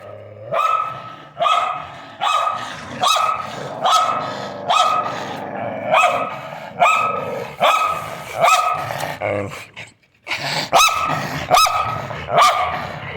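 Dog barking over and over in a steady rhythm, slightly under a second between barks. The barks break off briefly about ten seconds in, then come back a little quicker.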